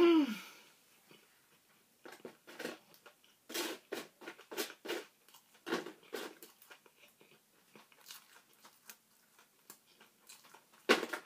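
Close-up chewing and crunching of food, a run of short irregular crunches and mouth clicks. It opens with a short vocal sound falling in pitch, and a single sharp smack comes near the end.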